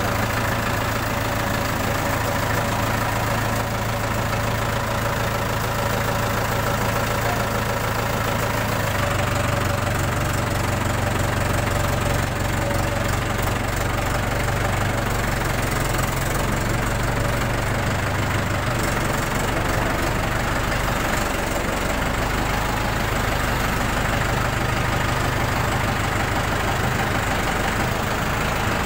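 Tractor's diesel engine running at low revs as the tractor creeps forward; its note steps up slightly about nine seconds in.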